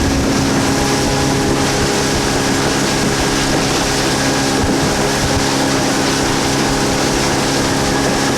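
Boat motor running at a steady speed, with wind and water rushing.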